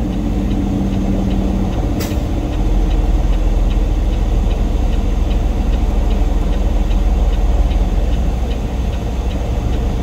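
Semi-truck diesel engine running, its low rumble growing louder about two and a half seconds in. A single click comes about two seconds in, and a faint regular ticking runs at about two ticks a second.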